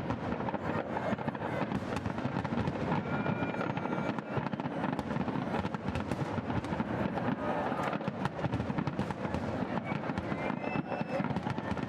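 An aerial fireworks display, with many shells bursting in quick succession. It makes a dense, unbroken stream of bangs, pops and crackling.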